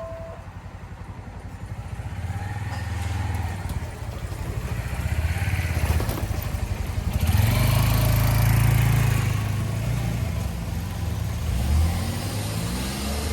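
Railroad crossing warning bell cutting off in the first moment. Then road vehicle engines run low and pull away across the crossing, loudest a little past the middle, with one engine revving up near the end.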